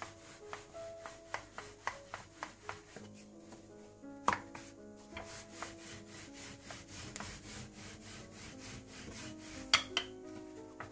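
Wooden rolling pin rolling out dough on a stone countertop: repeated rubbing strokes with light knocks of the pin, a sharper knock about four seconds in and another near the end. Soft background music plays under it.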